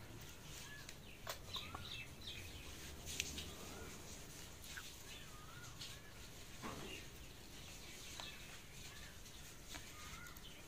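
Faint bird chirping: short wavering calls repeated every second or so, with a few soft clicks.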